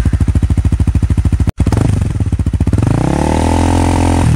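Engine exhaust running with a fast, even pulsing beat, cut off for an instant about a second and a half in. It then revs up and holds at a higher pitch.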